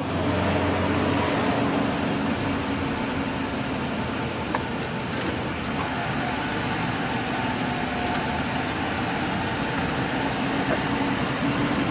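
A parked police patrol car's engine idling steadily, a low even hum.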